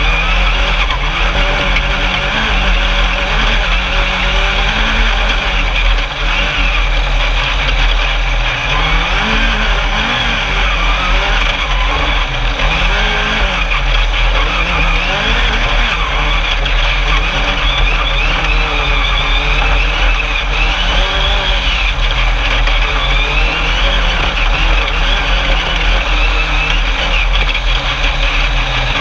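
The engine of an Alumicraft single-seat Class 10 off-road race buggy, heard on board at race pace, its revs rising and falling again and again as the driver works the throttle over a steady rush of driving noise.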